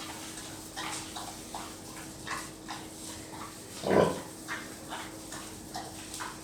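Pigs grunting and squealing in many short calls, with one much louder call about four seconds in.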